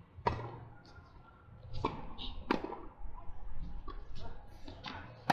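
Tennis rackets striking the ball in a rally: several sharp pops a second or two apart, the loudest just after the start.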